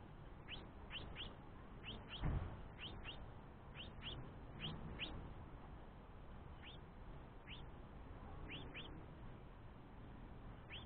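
Young house finch begging from the male: short rising chirps repeated in quick runs, thinning out after about five seconds. A single low thump about two seconds in.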